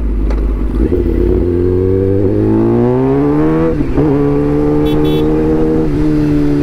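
Kawasaki ZX-10R inline-four engine pulling as the bike accelerates, its pitch rising steadily for about two seconds, then dipping briefly just before four seconds in and holding a steady note. Wind rumbles on the helmet camera's microphone over the first second or so.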